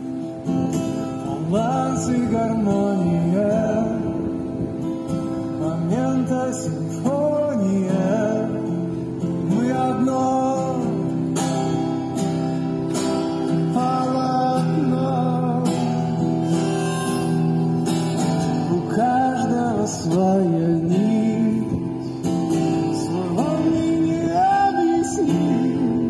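Music: strummed acoustic guitar under a melody that slides between notes.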